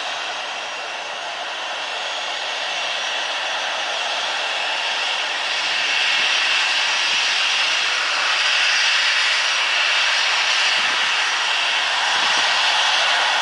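Boeing 737-800's CFM56 turbofan engines running at low taxi power as the airliner moves slowly and turns on the runway, a steady jet hiss and whine that grows louder about halfway through.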